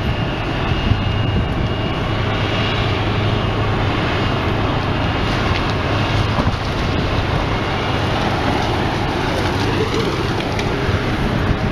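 Slag pot carrier's engine running steadily under a rushing noise as the carrier tips its pot and molten slag pours into the pit.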